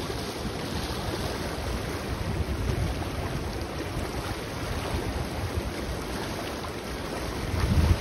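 The fast, turbulent water of the Ganges rushing steadily, with wind buffeting the microphone in low gusts, strongest just before the end.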